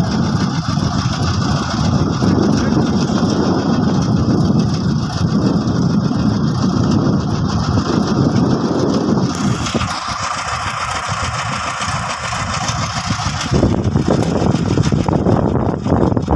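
Heavy engine running loudly and steadily, its sound changing abruptly about nine and a half seconds in and again about four seconds later.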